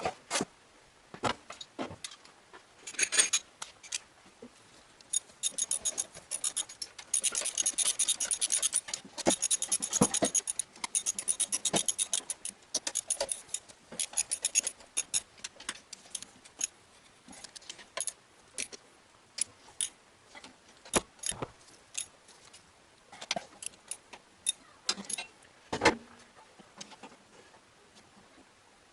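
Metal hand tools and parts clinking and rattling against each other in irregular sharp clicks, with a denser spell of rapid clicking about seven to eleven seconds in.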